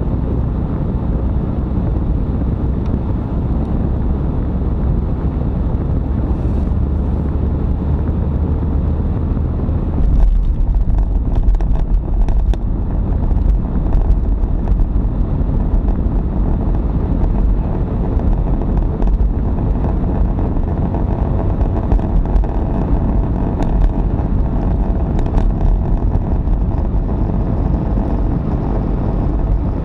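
Car cabin noise while driving: steady engine and tyre rumble from the road, with the low rumble changing and growing louder about ten seconds in.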